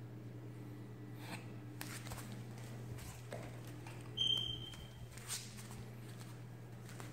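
Westie puppy playing on a tile floor: scattered light taps and clicks over a steady low hum, with one short, high squeak about four seconds in, the loudest sound.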